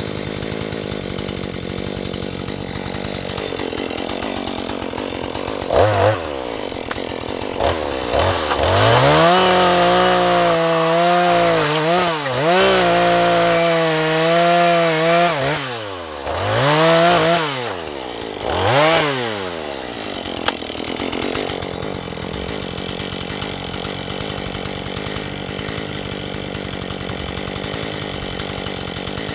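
Two-stroke chainsaw idling, then revved to full throttle about eight seconds in and cutting through a log, its engine note dipping under load. It gives two more short revs and drops back to idle for the last third.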